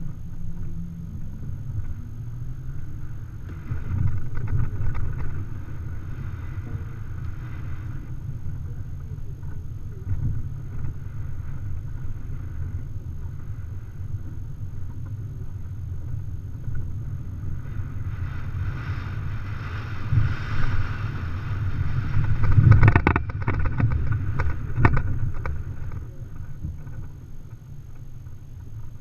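Off-road vehicle driving over a rough dirt track: a steady low engine and road rumble, with jolts and rattles from bumps. The jolts are loudest around two-thirds of the way through.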